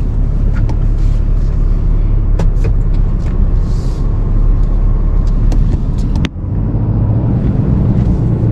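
Tow truck driving slowly, with a steady low engine and road rumble heard from inside the cab and scattered light clicks and knocks. About six seconds in the sound breaks off for a moment, then carries on as a steadier low hum.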